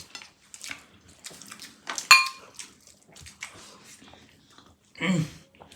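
Plates, spoons and hands clicking, clinking and scraping while several people eat, with one sharp ringing clink about two seconds in. A short voice sound from one of the eaters near the end.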